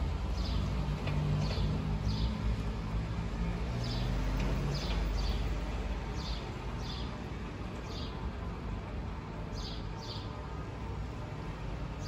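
A bird chirping in short, high notes, about a dozen scattered through, over a low rumble that eases about halfway. Church bells ring faintly underneath.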